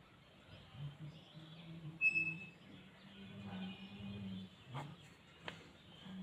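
Pencil writing on paper, faint scratching with two sharp ticks near the end, over a low hum that comes and goes. A short high chirp sounds about two seconds in.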